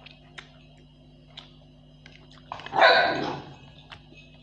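A dog barks once, loudly, about three seconds in. Earlier there are a few light clicks of a fork and spoon against a plate.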